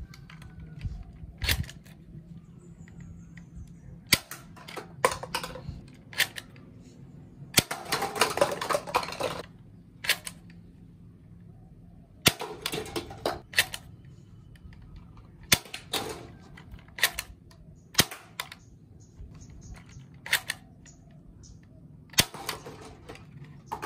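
LG4 spring-powered foam-dart toy pistol being cocked and fired over and over, each shot a sharp plastic snap, about fifteen in all, some in quick pairs. Lightweight plastic cups knocked off the stack clatter and roll on concrete, the longest clatter about eight seconds in.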